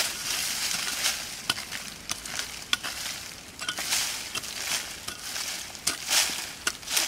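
A small hand pick scraping and chopping into a bank of dry fallen leaves and soil, in repeated irregular strokes about a second apart: crackling rustle of dry leaves with occasional sharp clicks of grit and small stones.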